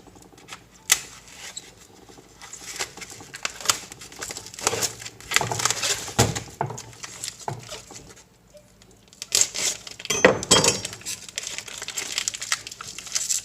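Raw chicken being unwrapped and handled: plastic packaging crinkling and tearing, with scattered small knocks and clicks, in irregular bursts.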